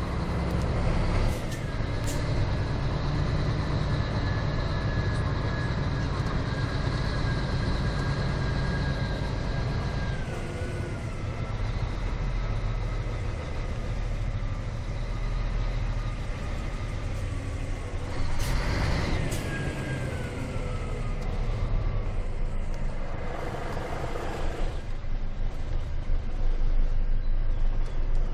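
Scania R420 truck's diesel engine running as the truck rolls slowly, heard from the cab, with a whine that drops in pitch twice and a short burst of hiss about two-thirds of the way through.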